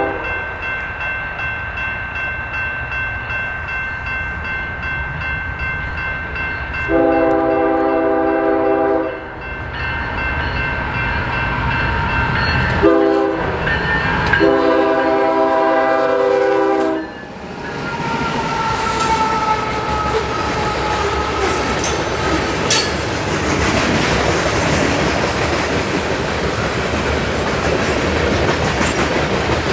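Diesel freight locomotive sounding its air horn as it approaches: a long blast, a short one and another long one. Then the grain train passes close by, wheels rumbling and clicking over the rail joints with some high wheel squeal.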